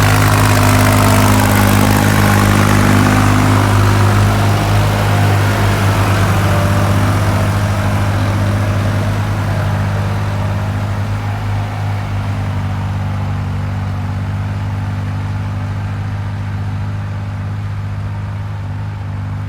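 An engine running at a steady speed, its hum slowly growing fainter over the second half.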